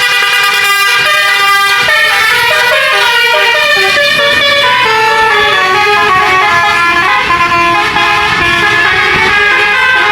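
Tour bus 'telolet' multi-tone horn playing a tune: a held chord of horn notes for about two seconds, then a run of notes stepping up and down.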